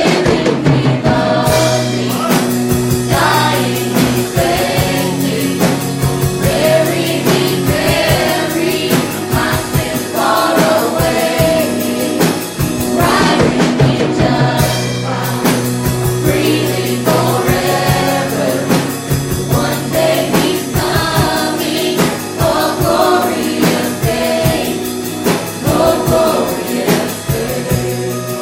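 Congregation and worship team singing a gospel song over a steady instrumental backing with a beat.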